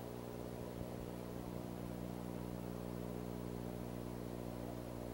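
Steady low electrical hum with an even hiss over it in a nest camera's audio feed; no eagle call stands out.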